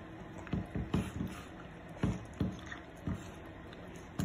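A small dog eating a snack from a person's fingers: irregular soft chewing and licking sounds, several in a row.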